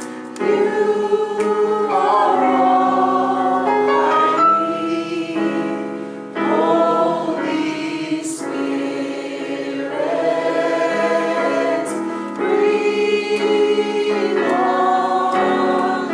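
Choir singing a gospel song, several voices holding chords together in phrases of a few seconds each.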